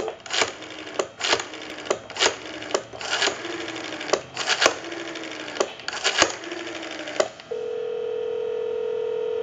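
Rotary dial of a Western Electric 302 desk telephone being turned and running back, digit after digit, its dial pulses clicking on the line. About seven and a half seconds in, a steady ringback tone starts as the dialed call goes through.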